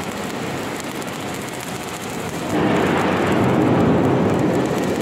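Electric arc welding on steel plate: the arc's steady hiss and crackle, growing louder about halfway through.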